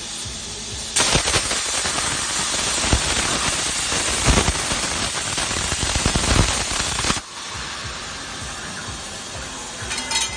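CNC plasma cutting torch cutting a metal tube: the arc starts with a sudden loud hiss about a second in, hisses steadily for about six seconds, then cuts off abruptly. A few short metallic clinks follow near the end.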